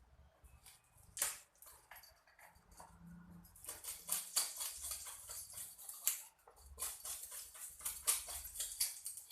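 A knife working on a fish as it is cleaned: rapid scratchy scraping strokes, with a sharp click about a second in and the strokes coming thick and fast from about four seconds in.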